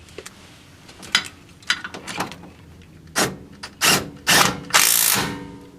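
Wheel hub mounting bolts being run down: a few sharp clicks, then several short bursts from an impact wrench about halfway through, the longest near the end.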